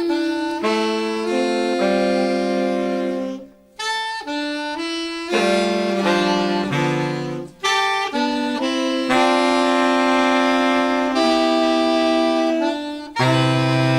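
Saxophone ensemble playing slow, held chords in several parts, with short breaths between phrases.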